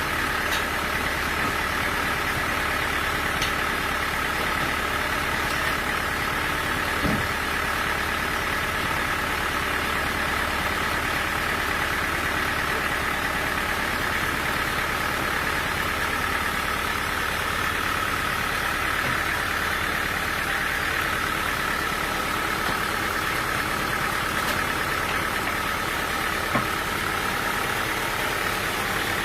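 Sawmill machinery running steadily, with an even high hum that holds throughout.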